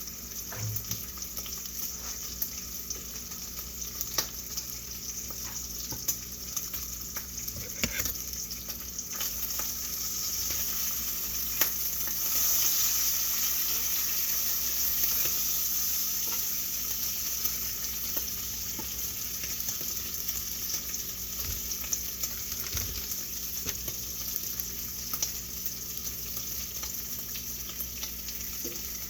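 Food frying in a pan: a steady sizzle that swells about twelve seconds in and then eases off, with scattered light clicks and taps.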